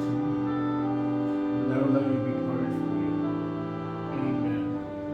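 Slow instrumental church music with long held chords, the pitches steady and changing every second or two.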